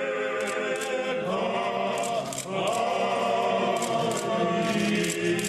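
Orthodox clergy chanting a hymn together in several voices, holding long notes.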